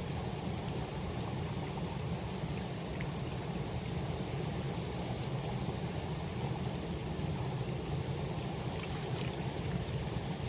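Steady rush of flowing river water: a low, even rumble with a fainter hiss above it.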